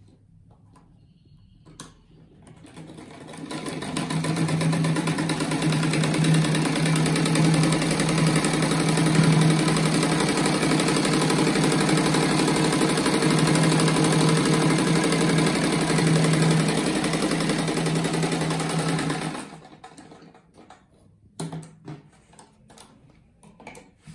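Sewing machine stitching a seam that joins two patchwork squares. It starts about two seconds in, builds to full speed over a second or two, runs steadily with an even hum, and stops abruptly a few seconds before the end. After that there is only faint fabric handling.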